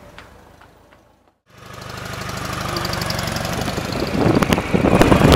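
Old Ural sidecar motorcycle's flat-twin engine running with a fast, even pulsing. It cuts in after a brief silence about a second and a half in and grows steadily louder.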